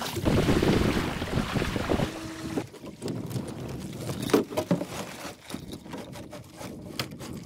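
Water splashing and streaming off a swimmer as he hauls himself onto the bow of a small sailing dinghy, then the dinghy's loose sail cloth flapping and snapping. The sharpest snap comes a little past halfway, with wind on the microphone.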